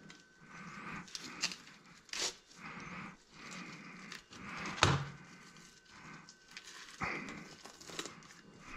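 Knife work on a yellow perch on a plastic cutting board: soft scraping and rustling strokes at irregular intervals, with a few sharp clicks of the blade or fish against the board, the loudest about five seconds in.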